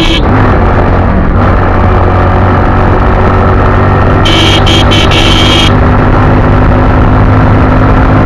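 A small single-cylinder commuter motorcycle's engine runs under way. It picks up in pitch through the first second as the bike accelerates, then holds a steady cruise. A high buzzing sound cuts in and out in a few short bursts about four to six seconds in.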